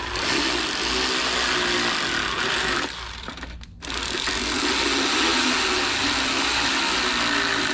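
Air ratchet running under the trigger as it drives in the two 8 mm screws of a generator's air filter cover: a steady hiss with a ratcheting buzz. It stops briefly about three seconds in, then runs again.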